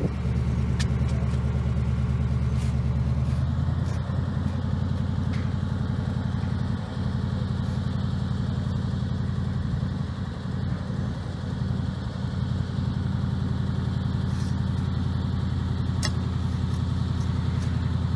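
Boom truck's engine running steadily while its boom holds the light pole; its note changes about three and a half seconds in. A few faint clicks.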